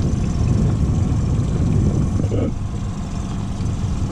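Boat motor running steadily, a continuous even drone.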